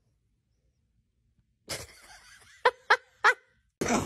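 Silence, then a pet lets out three short, sharp, high calls in quick succession, each less than a fifth of a second long.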